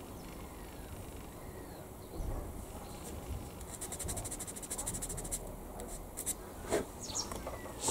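Plastic model tank gun barrel being sanded by hand to remove its seam line: a quick run of fast, even scratchy strokes lasting under two seconds, then a few light clicks as the part is handled.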